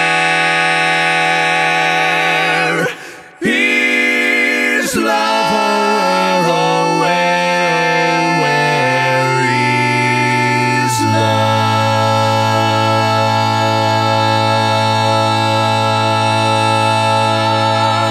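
Four-part a cappella barbershop harmony, one male singer multitracked on all four parts, singing the closing tag. A held chord breaks off briefly about three seconds in. The inner voices then move over a bass line that steps down, and the quartet settles about eleven seconds in on a long ringing final chord that cuts off at the end.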